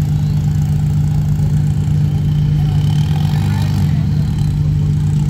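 Rock buggy's engine idling steadily.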